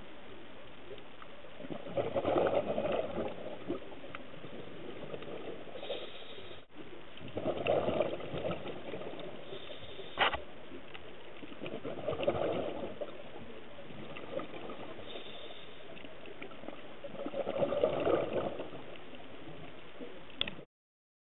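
Scuba diver breathing through a regulator underwater: a burst of exhaled bubbles about every five seconds, four in all, over a steady hiss. A single sharp click comes about halfway through, and the sound cuts off suddenly just before the end.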